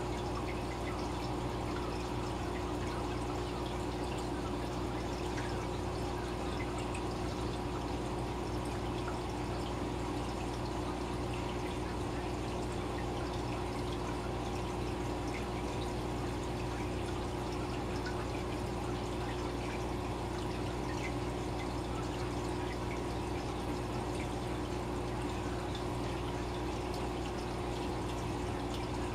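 Aquarium water bubbling and trickling from air-driven bubble curtains, with many tiny bubble pops, over a steady low hum.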